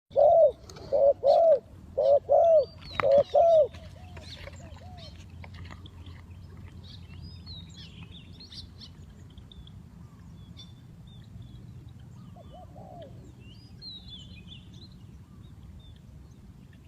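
Spotted dove cooing: about six loud, low coos in pairs over the first four seconds, with a fainter coo again about twelve seconds in. Small birds chirp thinly and high throughout.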